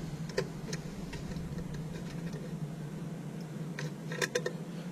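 Light clicks and taps from handling a metal guitar-pedal enclosure: a couple near the start and a quick cluster near the end, over a steady low hum.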